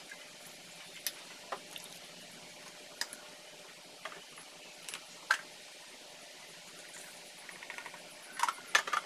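Scattered light clicks and knocks of coffee brewing gear (glass carafe, dripper, metal filter, cups) being handled and set down on a table, with a quick cluster of louder clinks near the end.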